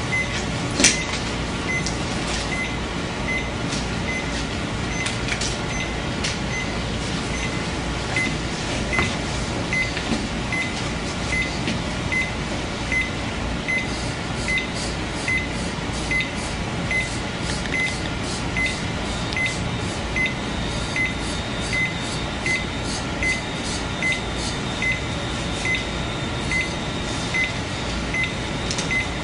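Cardiac monitor giving its short heartbeat beep at an even pace, about once a second, in time with the patient's pulse picked up by the ECG electrodes. Small irregular clicks and scrapes from handling at the patient's legs sit over a steady room hum.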